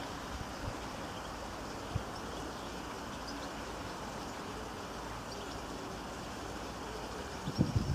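Steady ambient background hiss with a faint click about two seconds in. Just before the end, loud honking bursts begin, typical of geese.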